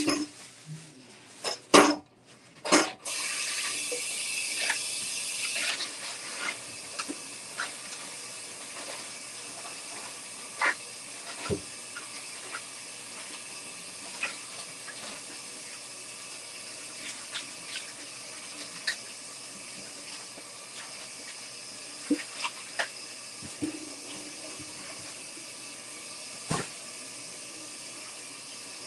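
Kitchen tap running steadily into the sink, starting about three seconds in after a few knocks, with scattered light clinks of dishes or utensils over the water.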